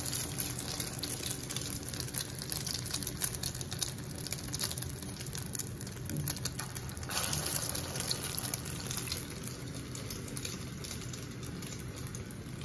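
Egg-coated chicken cheese cutlets deep-frying in well-heated oil in a pan: a steady sizzle with fine crackling, louder for a couple of seconds about seven seconds in.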